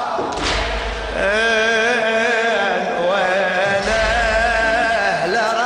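A male voice chants a Shia mourning elegy (latmiya) in a wavering melodic line. Two deep thumps fall about three and a half seconds apart under the voice.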